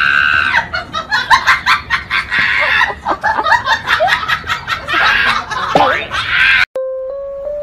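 Hearty human laughter in rapid, repeated bursts, cut off abruptly near the end, where a simple melody of steady tones begins.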